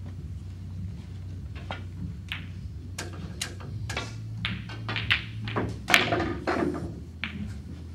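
Snooker shot: the cue tip strikes the cue ball, then a run of sharp clicks and knocks as the balls hit one another and the cushions, the loudest knock about six seconds in.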